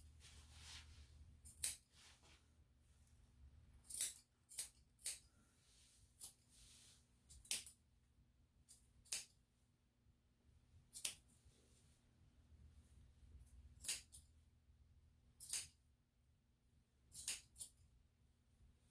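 Dog grooming scissors snipping through coat: about ten sharp metallic snips, spaced irregularly a second or two apart.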